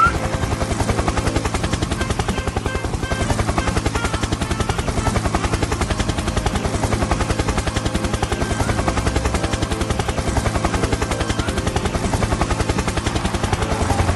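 Helicopter rotor sound effect: a fast, even chopping of the blades that holds steady.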